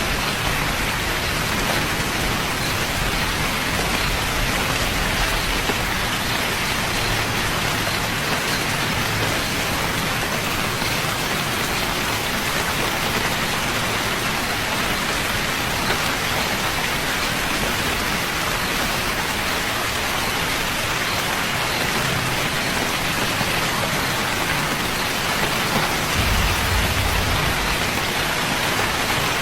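Steady rain falling, an even, dense hiss of many drops with no let-up. Brief low rumbles sound in the first few seconds and again about 26 seconds in.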